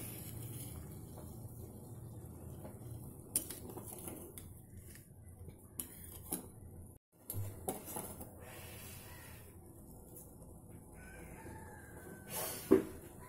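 Metal slotted spoon clinking against a stainless steel pot while stirring and scooping boiled sweet corn kernels in water: a few scattered clinks, the sharpest near the end.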